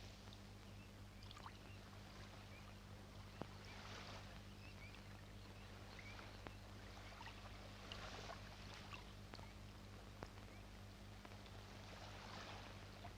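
Faint water sounds around a small boat on the water, swelling about every four seconds, with a few light knocks over a low steady hum.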